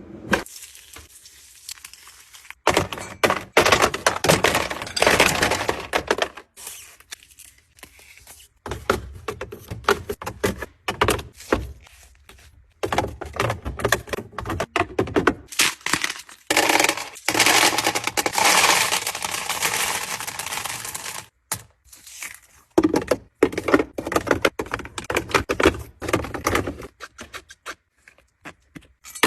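Fridge restocking: plastic packaging crinkling and tearing, with repeated thunks and clicks of containers and items being set in place.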